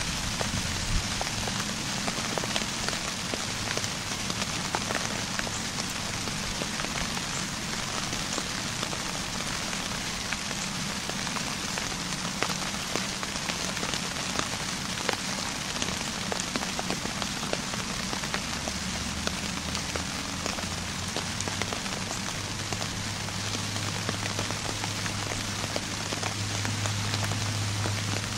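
Steady rain falling on leaves, with many small drop ticks through it. A low hum comes in over the last ten seconds or so.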